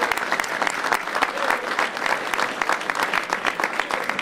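A crowd of people in a room applauding: sustained clapping with a low murmur of voices.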